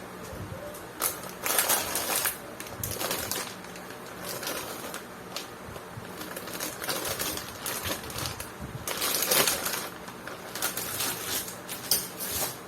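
Packaging crinkling and rustling in irregular bursts, with light clicks and knocks of plastic parts being handled, over a faint steady hum.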